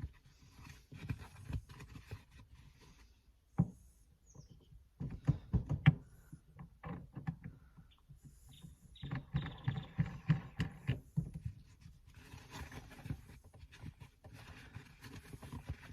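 Small handling noises as the shift knob is fitted back onto the gear lever: irregular clicks, light knocks and rubbing, in short clusters.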